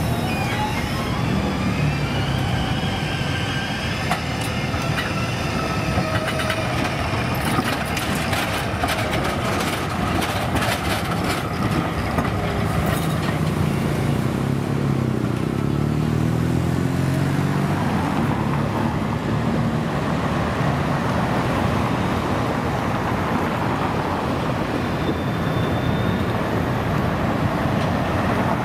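Articulated 4900-series tram running through a street junction: tones gliding up and down in pitch from its wheels and motors as it takes the curve, then a run of sharp clicks as its wheels cross the junction's points and rail crossings, over steady street traffic noise.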